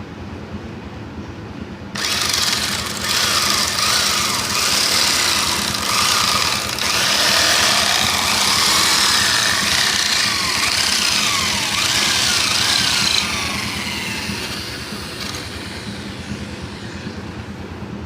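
Power drill running with squared wood being scraped round against a cutting edge: a loud rasping whirr that starts suddenly, with pitch gliding up and down, and stops about eleven seconds later, leaving a fading rattle.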